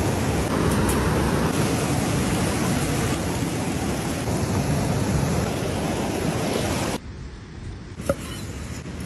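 Steady rush of a fast-flowing mountain stream over rocks. It drops abruptly to a quieter rush about seven seconds in, followed by a single light knock.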